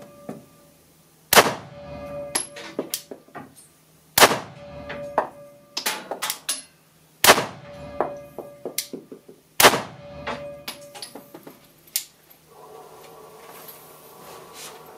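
Four unsuppressed 9mm shots from a Glock 19 Gen 4 MOS pistol, two to three seconds apart, each ringing with echo and followed by lighter clinks and knocks. About twelve seconds in, a steady hum with a few tones starts: the range's extractor fan being switched on.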